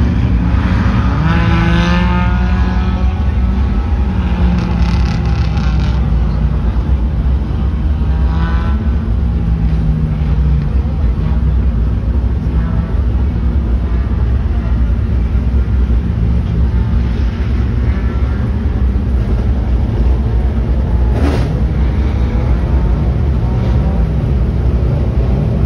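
Front-wheel-drive race cars running on the track, engines revving up and down as they go past, with one sharp pop near the end.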